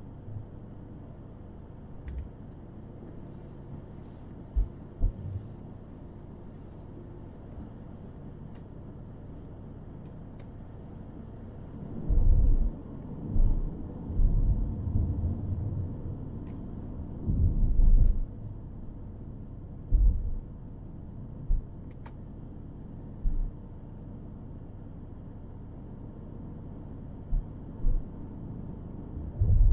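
Car on the move: a steady low rumble of road and engine noise, broken by irregular low thumps and bumps, most of them between about twelve and eighteen seconds in and a few more near the end.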